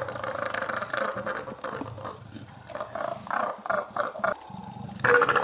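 Mating leopards growling: a long continuous growl, then a run of short growls, and another loud growl starting near the end.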